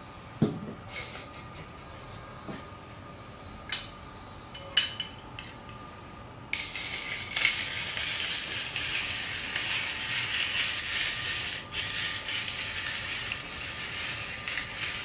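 Hand-cranked stainless steel rotary drum grater shredding a carrot. First a few separate metal clicks and knocks as it is handled and loaded, then from about six and a half seconds in a continuous scraping as the crank turns the drum against the carrot.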